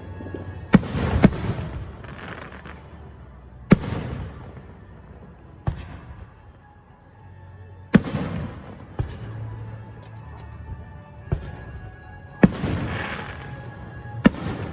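Aerial fireworks shells bursting overhead, about nine sharp bangs a second or two apart, some followed by a trailing crackle.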